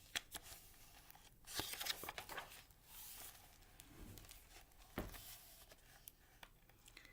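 Faint paper rustling with a few soft clicks and taps: pages of a picture book being handled and turned.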